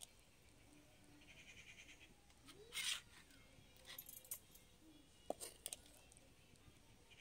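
Faint scrapes and clinks of a steel ladle against an iron kadai and a steel plate as pieces of fish curry are lifted out and served. There is one short, louder scrape near the middle and a few light clinks after it.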